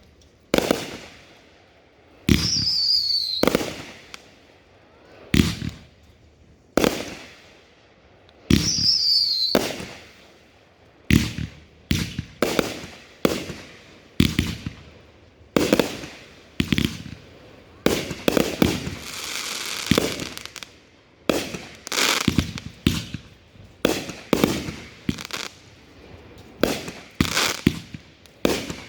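Consumer aerial fireworks bursting in a long series of sharp booms, spaced a second or two apart at first and coming faster in the second half. Two falling whistles sound early on, and there is a stretch of crackling about two-thirds of the way through.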